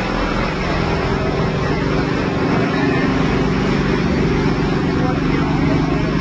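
A steady mechanical drone under a dense outdoor background, with a few steady hums that change pitch about half a second in.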